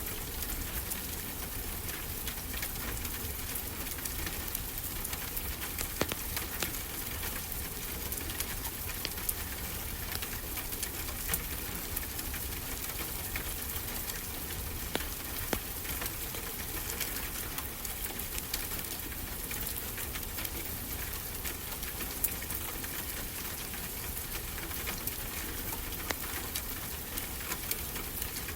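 A wood fire crackling, with frequent small sharp pops and snaps over a steady, even wash of ocean surf.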